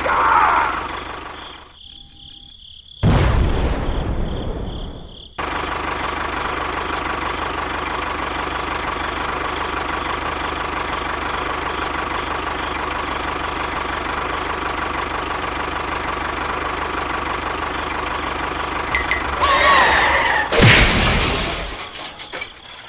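A steady, engine-like mechanical drone with a constant hum, broken by abrupt cuts and a brief loud noisy burst about three seconds in, and another loud burst near the end.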